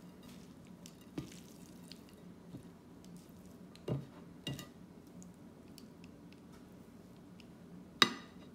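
Spaghetti being tossed with tongs in a large ceramic bowl: soft, wet squishing of the pasta, with a few sharp clicks of the tongs against the bowl, the loudest near the end. A faint steady hum lies under it.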